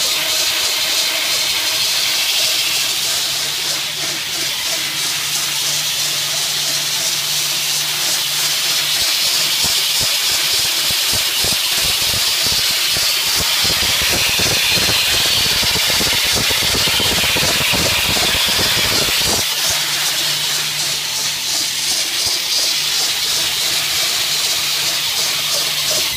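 BOPP tape slitting and rewinding machine running: a loud, steady hiss of tape film running over the rollers, with a low steady hum from the drive. For about ten seconds in the middle the hum gives way to a rougher, crackling noise.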